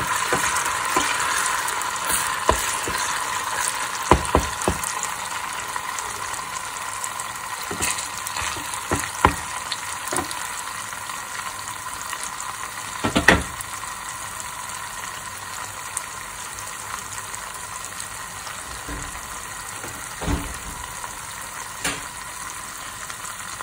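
Tomato paste frying in oil in a small stainless steel saucepan: a steady sizzle that eases slowly, with a wooden spoon stirring and knocking against the pan now and then, the loudest knock about halfway through.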